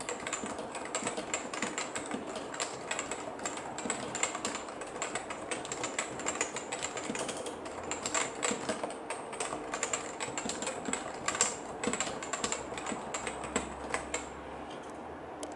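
Typing on a Topre Type Heaven keyboard, its Topre capacitive switches under ABS keycaps: a quick, uneven patter of keystrokes that stops shortly before the end.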